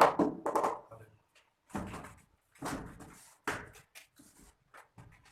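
Indistinct talking in a small room, with a few short knocks.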